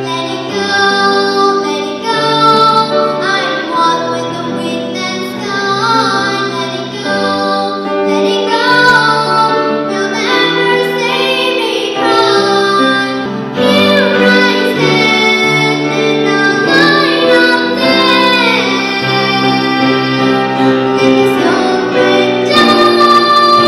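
A young girl singing a melody with held, wavering notes into a handheld microphone, amplified over a sustained musical accompaniment.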